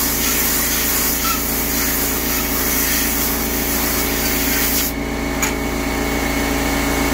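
Compressed air from a blow gun hissing steadily onto the aluminum quench plates that clamp a MagnaCut knife blade, cooling the plates during the plate quench; the air cuts off about five seconds in, followed by a short click. Underneath, a running air compressor hums steadily.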